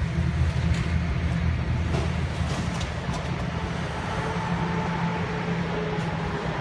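Hitachi hydraulic excavator's diesel engine running steadily while it demolishes a wooden building. A few sharp knocks and crashes of debris come in the first three seconds.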